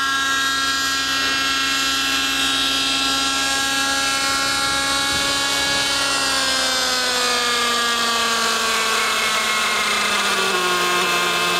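Thunder Tiger Raptor 50 nitro RC helicopter running on the ground: the .50-size glow two-stroke engine and spinning rotor make a high, steady whine. About halfway through, the pitch starts to fall gradually as the engine and rotor slow.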